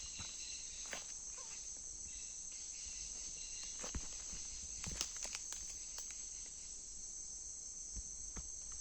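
Steady high-pitched chorus of insects, such as crickets, with scattered light clicks and taps.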